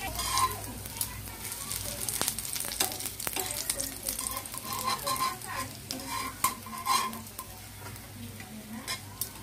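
An egg-coated bread slice sizzling and crackling as it fries in oil in a pan, with metal tongs clicking against the pan as the slice is moved and lifted.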